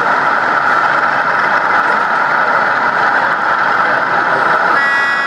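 Sound-fitted OO gauge Class 37 diesel model's engine sound running steadily from its onboard speaker as the locomotive moves off. A pitched tone comes in near the end.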